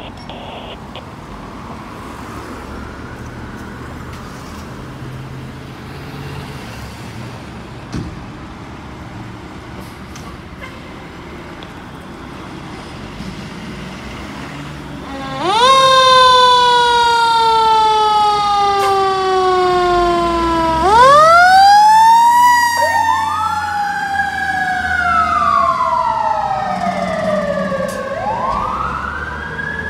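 Fire apparatus engine running with street traffic for the first half. About halfway in a fire truck siren starts loudly: a long falling wail, then repeated rising and falling wails, with a second siren wail overlapping near the end.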